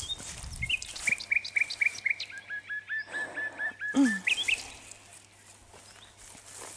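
A songbird singing one phrase: a run of quick repeated notes, then a lower run of the same notes, ending in a short rising flourish. About four seconds in, a short low sound falling in pitch is the loudest thing.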